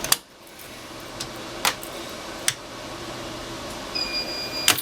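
A few sharp clicks, then about four seconds in a fire alarm control panel's built-in sounder starts a steady high-pitched tone: the panel signalling a new alarm after a pull station has been activated.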